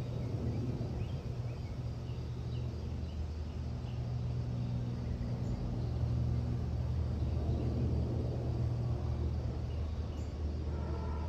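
Airbus A330-300 jet with Rolls-Royce Trent 700 engines passing overhead on approach to landing, a steady low rumble with a higher whine joining near the end. Faint bird chirps sound over it in the first half.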